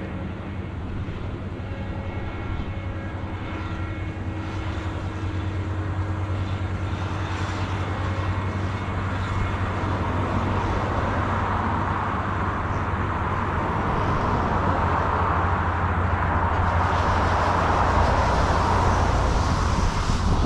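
Harvest machinery engine running steadily with a low hum. It grows louder over the second half, with a rising rushing noise added.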